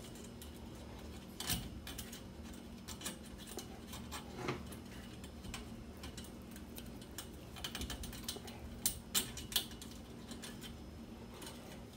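Scattered light clicks and taps of a wire hook and steel fish tape working inside a roll-cage tube to catch a string, with a quick run of three clicks near the end.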